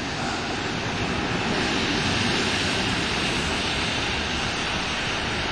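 ALn 668 diesel railcar approaching, its diesel engine running along with the rumble of its wheels on the rails. The sound grows louder over the first two seconds, then holds steady.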